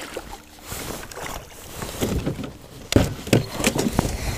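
Hooked largemouth bass splashing at the water's surface beside a kayak as it is reeled in, with a run of sharp splashes and knocks in the second half.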